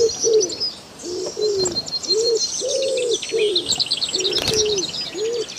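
Birds calling: a run of short, low, arched notes repeating about twice a second, with high chirps and quick trills above them.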